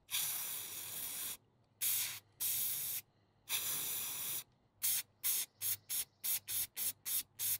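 Aerosol spray paint cans hissing: several longer sprays of about half a second to a second and a half, then a quick run of short puffs, about three or four a second, as paint is laid onto the water for hydro dipping.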